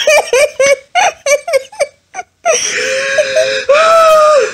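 A man laughing hard in quick, rapid bursts, then a long, drawn-out wail held through the second half.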